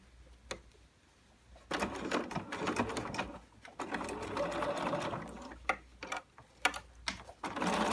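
BERNINA 770 electric sewing machine topstitching binding on a fabric basket. It starts about a second and a half in and runs in bursts of a couple of seconds with short stops and a few clicks between, the usual stop-start of sewing around a curved edge.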